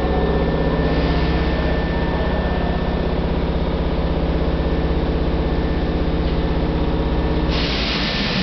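Steady, pulsing mechanical hum from a stationary Hankyu commuter train's underfloor equipment. About seven and a half seconds in, a louder hiss comes in and the hum starts to fade.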